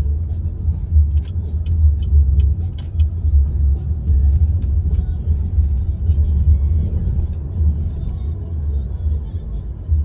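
Munchkin kitten purring close to the microphone: a loud, steady low rumble that swells and eases about once a second.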